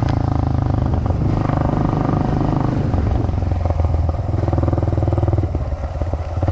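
Honda dirt bike engine running at low revs, its pitch shifting a few times as the throttle changes.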